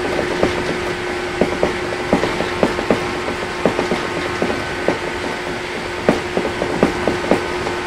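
Inside a 115 series 1000 electric multiple unit running at steady speed: a constant hum from the MT54 traction motors and gearing over the rumble of the wheels. Irregular clicks and creaks from the car come two to four times a second.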